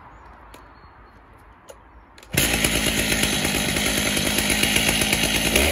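Chainsaw mounted in a chainsaw mill starting up suddenly about two seconds in, then running loud and steady.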